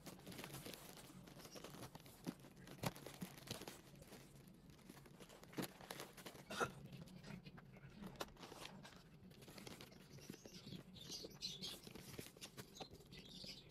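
Faint crinkling and rustling of plastic grocery packaging being handled, with scattered small crackles.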